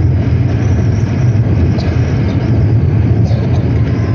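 Steady low rumble of a car's road and engine noise heard from inside the closed cabin while driving.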